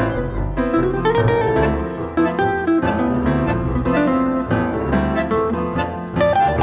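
Tango-jazz quintet of piano, double bass, bandoneon, guitar and vibraphone playing live: a dense run of quick piano notes over a double bass line.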